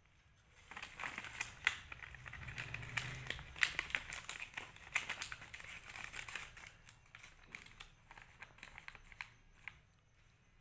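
Plastic candy wrappers crinkling and crackling as hands handle them. It starts about a second in and thins out near the end.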